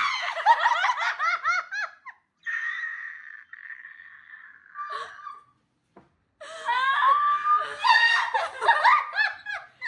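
Young women laughing hard in quick bursts of high-pitched laughter. The laughter is broken in the middle by a long, high, held squeal, then breaks out again near the end.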